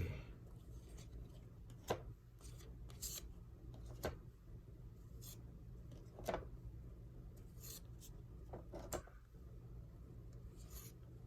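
Trading cards being handled and slid across one another, a faint rubbing with a handful of short clicks every couple of seconds.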